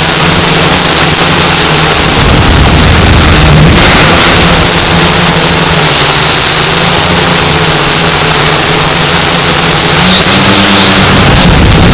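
Small camera drone's motors and propellers running in flight, picked up close by its own onboard camera: a loud, steady high whine that wavers slightly in pitch and dips and wobbles about ten seconds in.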